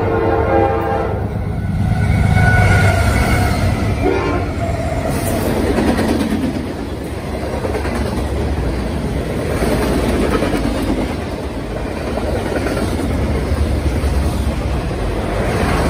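Norfolk Southern freight train passing close by: its horn sounds a chord that cuts off about a second in, the lead diesel locomotives go by with a loud low rumble, and then the freight cars roll past with steady wheel rumble and clatter.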